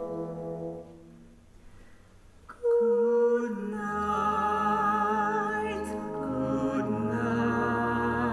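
A brass band holds a chord that fades away about a second in; after a short hush the band comes back in loudly, and a woman's voice sings over it with a wide vibrato.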